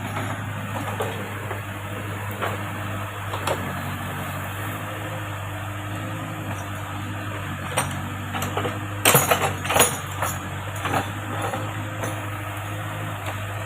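Backhoe loader's diesel engine running steadily, with sharp metallic clanks and knocks from the machine's working parts, loudest in a cluster about nine to ten seconds in.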